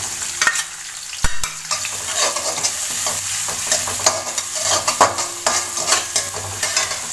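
Chopped onion sizzling in hot oil in a metal wok while a metal spatula stirs it, scraping and tapping against the pan many times, with one sharp click about a second in.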